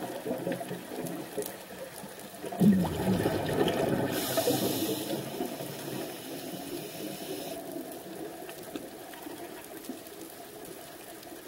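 Underwater sound of a scuba diver breathing through a regulator: a loud bubbling rush of exhaled air a little before three seconds in, and a hiss from about four seconds in to past the middle, over steady underwater noise.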